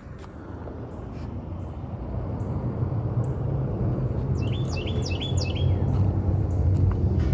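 A low engine rumble grows steadily louder throughout, and a small bird chirps four quick times midway.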